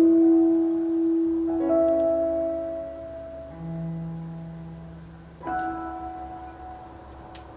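Instrumental background music: slow held notes, a new chord sounding about every two seconds.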